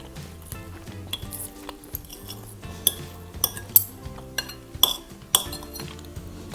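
Background music with a steady bass line, over repeated sharp clinks of cutlery against a dish, the loudest a few seconds in.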